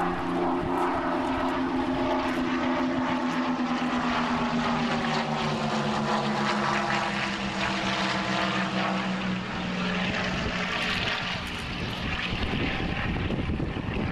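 Two Fuji T-3 piston-engine trainers flying past in formation, their propeller engines droning steadily. The pitch falls slowly as they pass, and the drone turns rougher and less tonal after about nine seconds.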